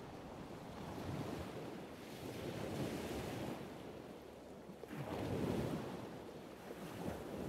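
Soft rushing noise that swells and ebbs, with its loudest swell a little past the middle.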